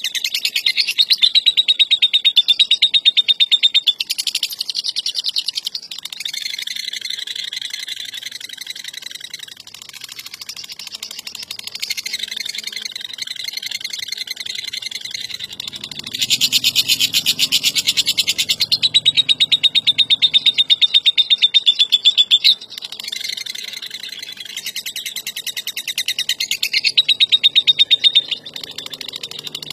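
Lovebird in long ngekek chattering: rapid-fire, high-pitched notes strung into long unbroken runs. The loudest runs come at the start, through the middle and near the end, with softer chatter between.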